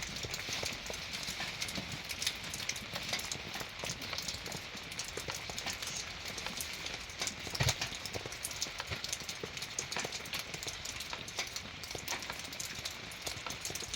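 Rain falling, with a dense, irregular patter of drops hitting nearby surfaces. One louder knock comes a little past halfway through.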